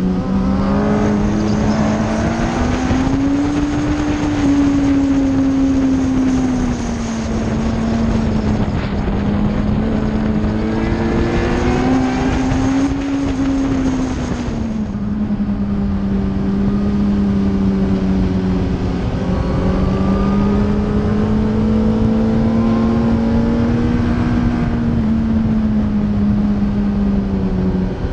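Suzuki GSX-R1000 K4's inline-four engine running at high revs on track, its pitch rising and falling gently as the throttle changes through corners, under heavy wind rush on the microphone.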